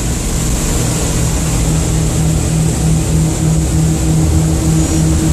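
Cabin noise of a propeller airplane in flight: steady engine and propeller drone with a low hum that throbs about three times a second, under a rush of air through the open cargo door.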